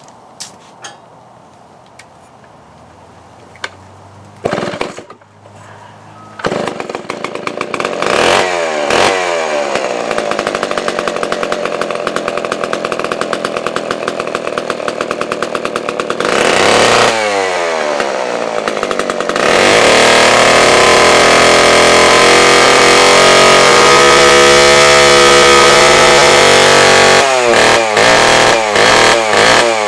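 Homelite XP-1130 chainsaw's two-stroke engine pull-started about four seconds in, catching a couple of seconds later and idling with a few revs that fall back. Past the middle it is held wide open for several seconds, then blipped quickly on and off the throttle near the end.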